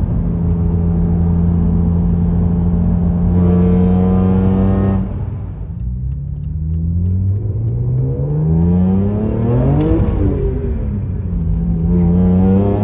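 BMW E46 M3's S54 3.2-litre straight-six, breathing through a Karbonius CSL carbon-fibre intake airbox, revving under acceleration inside the cabin. It holds steady, then louder; it cuts back about five seconds in, climbs steadily in pitch to a peak about ten seconds in, drops back, and climbs again near the end.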